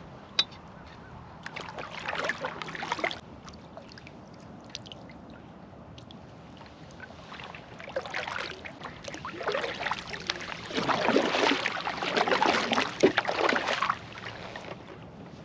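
Double-bladed paddle strokes dipping and splashing in the water as a canoe is paddled, in a short run about two seconds in and a longer, louder run from about eight seconds until near the end. A single sharp click about half a second in.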